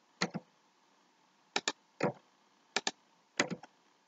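Computer keyboard being typed on slowly, key by key: a handful of sharp clicks at uneven intervals, several coming in quick pairs.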